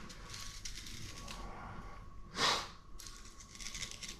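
Fillet knife slicing along a pompano's backbone on a plastic cutting board: faint scratchy scraping with small ticks as the blade works over the bones. About two and a half seconds in there is one louder, short hissing sound.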